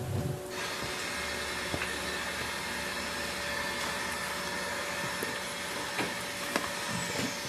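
A kitchen exhaust fan switched on, running with a steady rushing noise and a faint whine, starting abruptly about half a second in.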